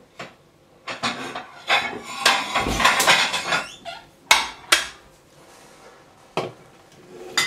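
Crockery clattering as a plate is taken from a kitchen cupboard: a run of knocks and clinks, busiest about two to three seconds in, then a few separate sharp knocks. Near the end come a couple of bumps as the camera is grabbed and handled.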